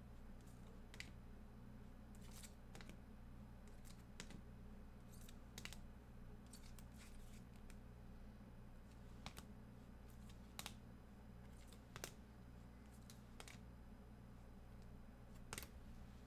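Near silence: a steady low electrical hum with a dozen or so light, sharp clicks at irregular intervals.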